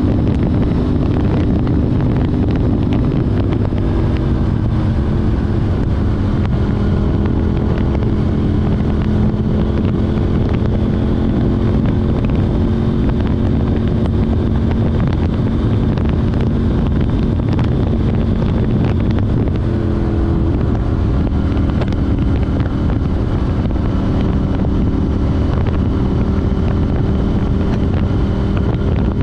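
KTM 790 Duke's parallel-twin engine breathing through an Arrow Race Tech exhaust with a de-cat pipe, running steadily under way. Its note shifts in pitch about four seconds in and again about two-thirds through, with wind rushing over the microphone.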